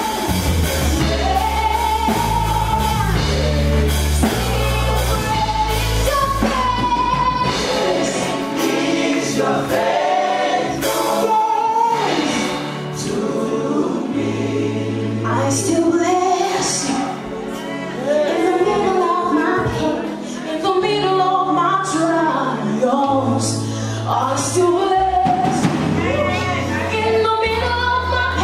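Gospel worship music: a group of voices singing together over a band with a steady bass line and drums.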